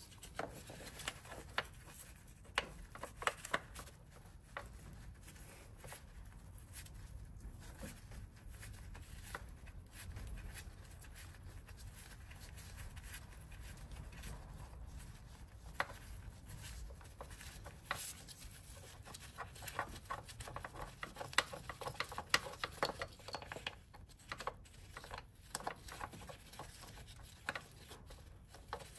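Scattered light clicks, clinks and rubbing of hand tools and engine parts being handled during dismantling, busier in the second half, over a faint low hum.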